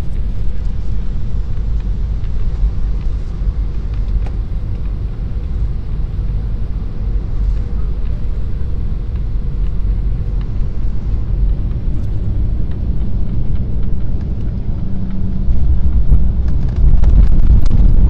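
Airliner cabin noise during landing: a steady low rumble of the engines and rushing air. It grows louder in the last few seconds, with a sudden step up about a second before the end, as the aircraft comes onto the runway.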